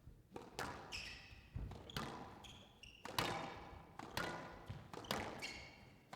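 Squash rally: the ball is struck by rackets and smacks off the court walls roughly every half second, each hit echoing, with short high squeaks of shoes on the court floor between shots.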